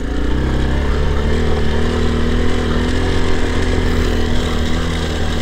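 Yamaha Serow 250's air-cooled single-cylinder four-stroke engine running at a steady speed as the bike rides along.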